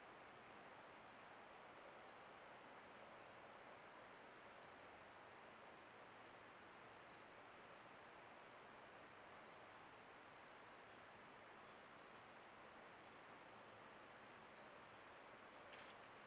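Near silence: faint high insect chirps repeating every second or two, with finer rapid ticks above them, over steady hiss and a thin high electronic whine. A faint click near the end.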